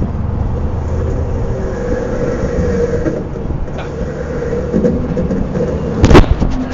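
Steady rolling rumble with a hum, then one sharp, loud impact about six seconds in.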